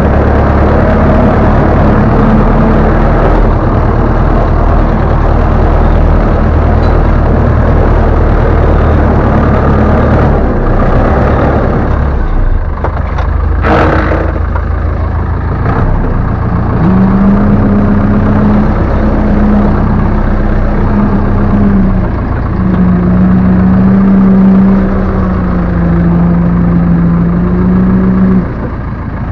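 Ursus C-360 tractor's four-cylinder diesel engine running as the tractor drives, heard from inside the cab. There is one sharp knock about halfway through, and a steady whine comes in over the engine in the last third, shifting pitch a couple of times.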